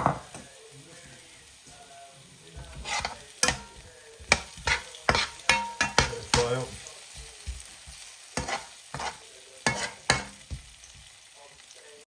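A cooking utensil stirring and scraping onions, chillies and tomatoes frying in a pan, with irregular scrapes and knocks against the pan from about two and a half seconds in until near the end, over a low sizzle. A sharp knock sounds right at the start.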